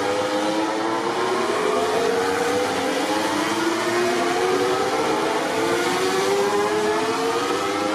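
MotoGP racing motorcycle engine accelerating hard out of a corner. Its high-revving note climbs in pitch and drops back again and again as it shifts up through the gears.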